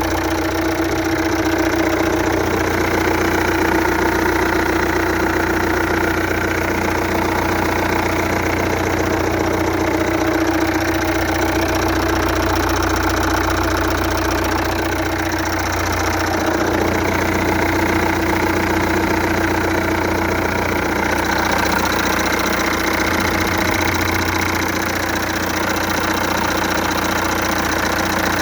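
A 2.0 TDI CAGA four-cylinder common-rail diesel engine running steadily at an even speed, with a knocking sound from the engine.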